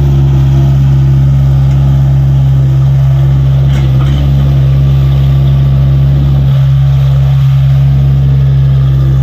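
Diesel engine of a Tata Hitachi EX70 excavator running with a loud, steady low drone, its pitch wavering briefly a few times.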